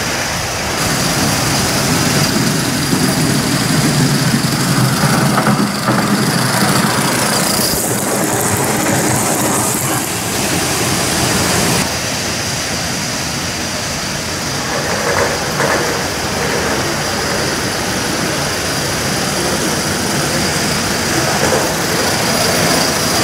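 Gauge 1 model trains running on the layout: a steady mechanical running noise with a high hiss, heavier in the low range for roughly the first ten seconds.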